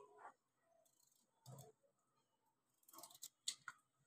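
Near silence broken by a few faint clicks and taps, most of them about three seconds in, as potato pieces are moved by hand in an aluminium pressure cooker.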